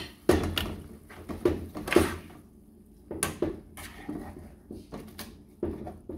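Cooking spoon stirring spinach in a nonstick frying pan, knocking and scraping against the pan in a string of irregular clacks.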